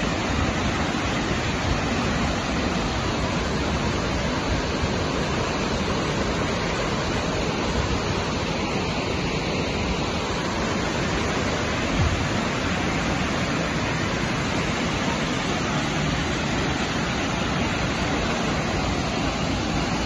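Steady rush of Burney Falls, a 150-foot waterfall, pouring into its plunge pool. A single brief knock about twelve seconds in.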